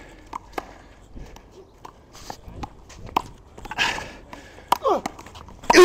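Handball rally: sharp slaps of the rubber ball off hands and the wall, with scuffing footsteps and short falling shoe squeaks on the court, the loudest squeak near the end.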